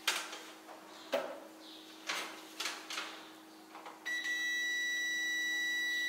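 A few light clicks and knocks of handling, then about four seconds in a digital multimeter's continuity beeper sounds one steady high beep as its probes rest on the new dryer thermal fuse's terminals: the fuse has continuity and is good.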